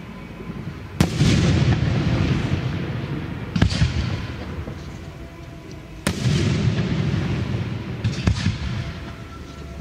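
Aerial firework shells bursting: four sharp booms a couple of seconds apart, each followed by a long rolling echo.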